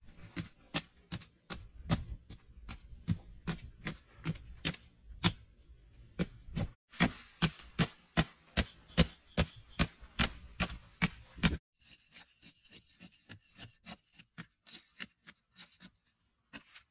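A long digging pole being driven down into hard, dry soil, striking about two to three times a second in a steady rhythm. A little before the two-thirds mark the strikes drop off sharply to fainter, quicker jabs, with a high steady buzz running beside them.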